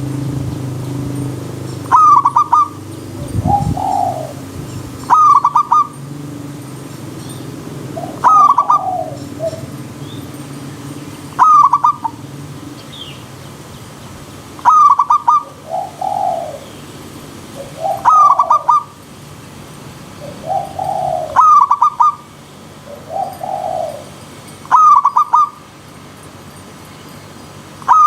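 Zebra dove (perkutut) cooing: a quick run of clipped notes repeated about every three seconds, with softer, lower coos between some of the phrases.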